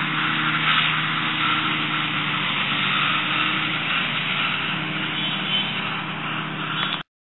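Zetor tractor engine running steadily while it mows with a Pöttinger Novadisk disc mower, a constant engine hum. The sound cuts off suddenly near the end.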